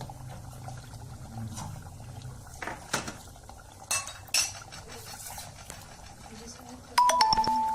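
Metal spoon knocking and scraping against a cooking pot while stirring a thick curry, with a few light clinks and then a loud clang about seven seconds in that rings on briefly.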